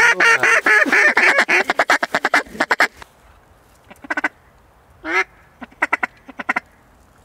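Mallard duck call blown by a hunter: a long run of fast, loud quacks that trails off over about three seconds, then a few short bursts of quacks.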